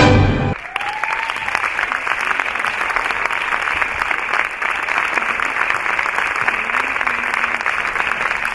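The music ends on a final chord about half a second in, and a theatre audience breaks into steady applause.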